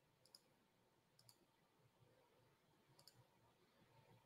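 Near silence broken by three faint computer mouse clicks, each a quick double tick.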